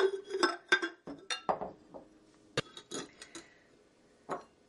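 A ceramic mug clinking and knocking against glass bowls as its rim is dipped in lemon juice and then in cinnamon sugar: a series of sharp, separate clinks, some ringing briefly.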